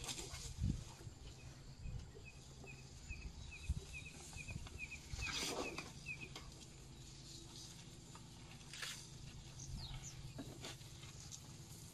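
African elephants browsing in bush, with rustling and snapping of leaves and twigs, loudest about halfway through. A bird calls a quick run of short high chirps, about three a second, through the first half. A steady low hum sits underneath.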